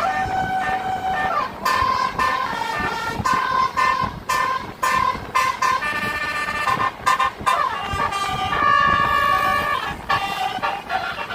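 A basuri telolet horn playing a tune: loud horn notes that step from pitch to pitch every half second or so, with a few sliding changes between them.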